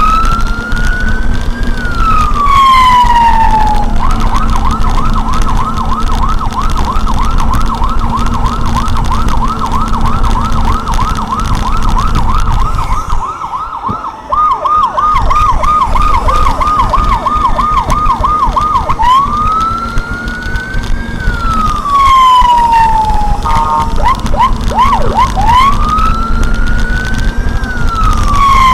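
Electronic vehicle siren switched through its tones: a slow rising-and-falling wail, then a fast repeating yelp for about eight seconds. After a brief break comes a different quick warble, and then the slow wail returns.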